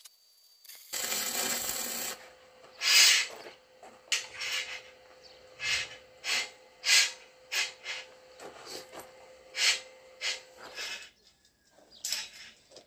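A second-long burst of hiss, then about a dozen short, rough scraping strokes at an irregular pace, with a faint steady hum underneath.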